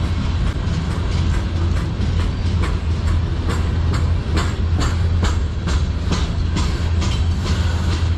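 Freight train's tank cars and covered hoppers rolling past close by: a steady low rumble with the wheels clicking over rail joints, about two clicks a second.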